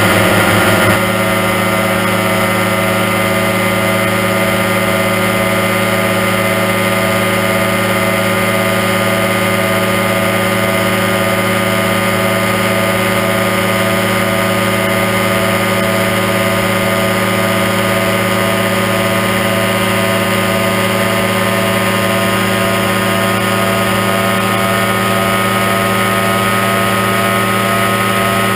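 Aerochute powered parachute's engine and propeller running at a steady cruise setting, a continuous drone that is slightly louder for about the first second.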